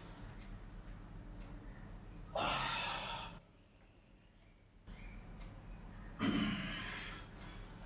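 A man breathing out hard twice while stretching, each breath a sudden rush that fades over about a second, the first about two and a half seconds in and the second about six seconds in.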